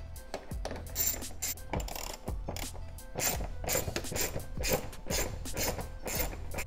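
A small hand ratchet with a T30 Torx bit clicking in short runs of quick clicks as it turns out a screw.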